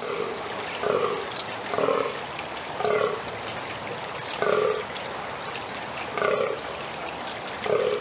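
Fallow buck groaning in the rut: a series of six short, deep, belching croaks, each falling slightly in pitch, about a second apart at first and then more spaced out.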